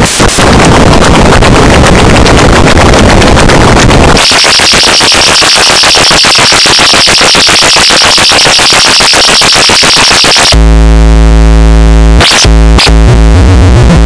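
Loud, harsh synthesized electronic buzzing in three segments: a noisy rasping buzz, then a buzz with a bright hissing edge from about four seconds in, then a deep, steady, pitched buzz from about ten seconds in that cuts out briefly twice.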